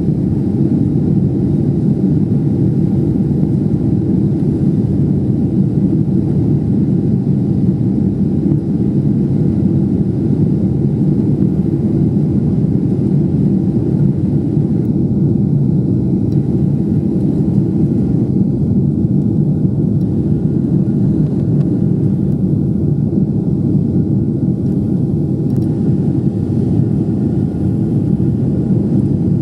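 Boeing 777-300ER cabin noise in the climb after takeoff: the GE90 turbofans and airflow heard from inside the passenger cabin as a loud, steady, low drone with a faint steady whine over it.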